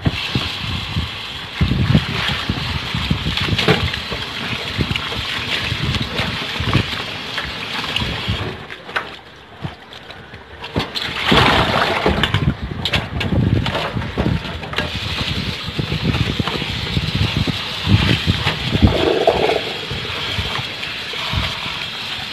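Tap water running into a stainless steel bowl of cabbage leaves in a kitchen sink, with hands sloshing and rubbing the leaves; the flow goes quieter for a couple of seconds about nine seconds in, then a loud splashing rush as the wet cabbage and water are tipped into a plastic colander.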